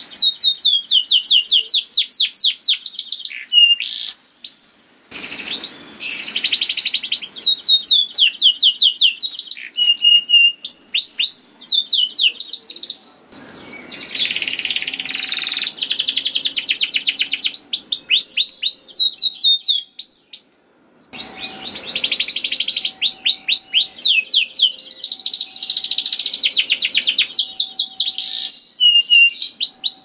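Male domestic canary singing a long, fast-trilled song, rapid repeated high chirping notes in phrases, breaking off briefly a few times.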